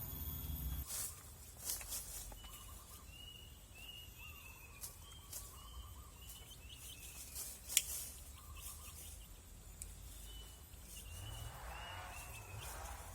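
A bird calling in runs of short, repeated chirps, with a few sharp clicks between them, the loudest one a little before eight seconds in.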